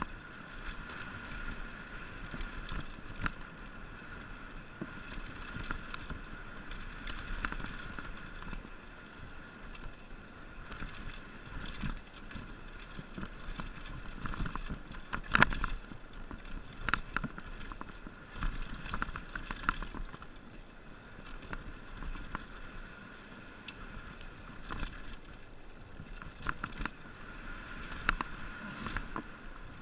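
Mountain bike riding fast down a dirt singletrack: tyre noise on the dirt with the frame and drivetrain rattling and clacking over bumps, and a sharp knock about halfway through.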